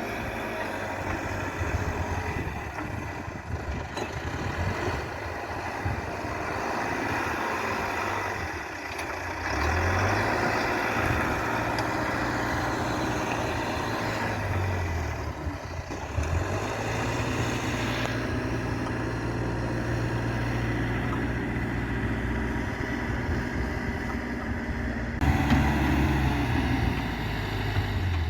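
Backhoe loader's diesel engine running and revving up and down as it works, its pitch stepping up and down several times and loudest about 25 seconds in.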